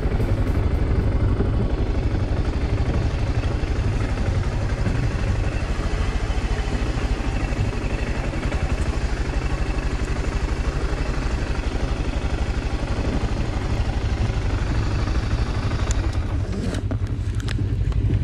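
Motorcycle engine running steadily while under way, with a few sharp clicks near the end.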